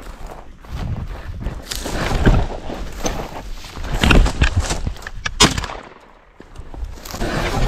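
Footsteps crunching irregularly on dry grass and stony ground as a person walks uphill, with the louder scuffs and knocks about two and four seconds in and a sharp knock a little after five seconds. Background music starts right at the end.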